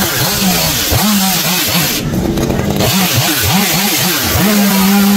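Two-stroke chainsaw engine revving up and down over and over, then held at a steady high pitch for about a second near the end.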